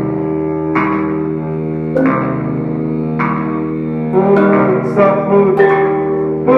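Live band music: ringing electric-guitar chords struck about once every second and a bit, each left to sustain. About four seconds in more notes join and the music grows louder.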